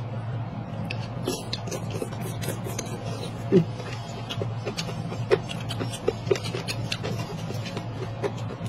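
Close-up eating sounds: a person chewing and slurping rice noodles from a paper cup, with many short wet smacks and clicks of mouth and chopsticks, the loudest about three and a half seconds in, over a steady low hum.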